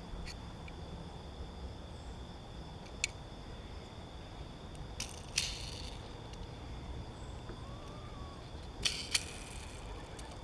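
Quiet handling noises from a small die-cast toy car and its plastic packaging: a few light clicks and a short rustle partway through, with two quick clicks near the end, over a faint steady hum.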